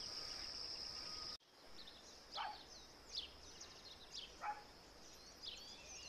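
Steady high-pitched insect trill with a low rumble of wind, cut off abruptly about a second and a half in. After that, a fainter insect hum with a few short, downward-sweeping bird chirps and whistles.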